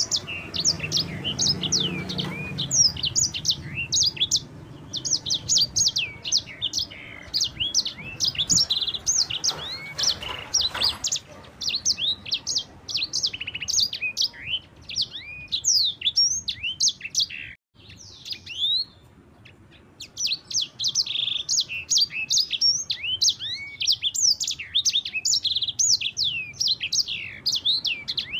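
Sanger bird singing a fast, continuous rolling song of high chirps and quick downslurred notes, breaking off briefly about two-thirds of the way through before picking up again.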